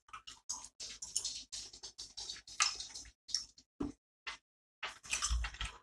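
Close-up wet chewing sounds of a soft, chewy Hi-Chew sweet being chewed: a fast, irregular run of squelchy mouth smacks and clicks.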